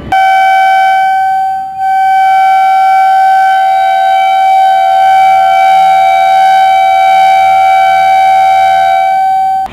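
Pakistan Railways HBU-20 diesel locomotive's horn sounding one long, very loud blast, a steady chord of tones that dips briefly about a second and a half in and then cuts off sharply after nearly ten seconds. It is the departure signal as the train pulls out.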